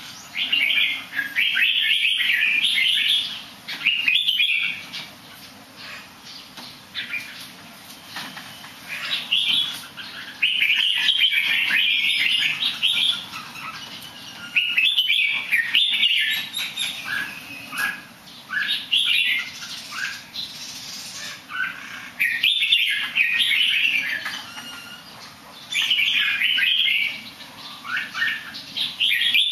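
Caged songbird singing in short warbling phrases, about eight of them, each lasting one to three seconds and separated by brief pauses, with some wing fluttering in between.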